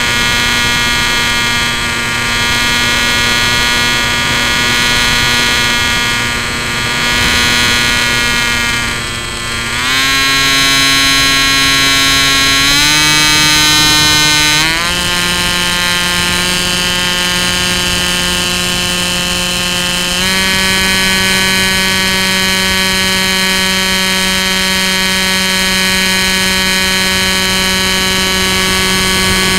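Bixler 2's electric motor and propeller whining steadily, heard up close through the onboard camera. Its pitch steps up several times in the middle as the throttle is raised, then holds.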